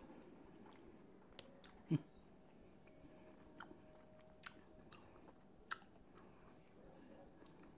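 Faint chewing of a soft sour gummy worm, with short wet mouth clicks scattered through. There is one louder low thump about two seconds in.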